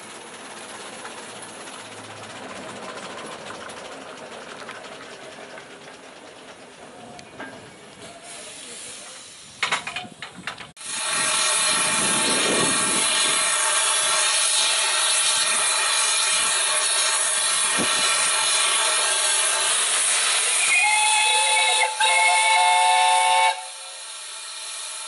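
Small saddle-tank steam locomotive letting off steam: a loud, steady hiss starts suddenly about halfway through. Near the end its whistle gives two short blasts of several tones together, and the hiss cuts off with the second blast.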